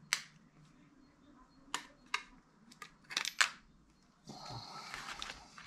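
Clear plastic craft-knife blade case being opened and handled: a handful of sharp plastic clicks and clacks, the loudest about three and a half seconds in, as the blade tray comes out. These are followed by about a second of scratchy rustling.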